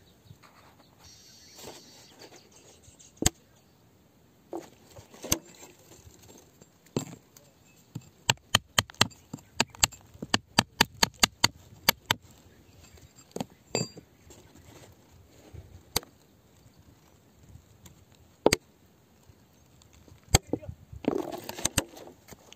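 Metal rod striking and digging into volcanic rock, sharp clinks: single strikes spaced a few seconds apart and a quick run of about four strikes a second in the middle, with a short scuffling noise near the end.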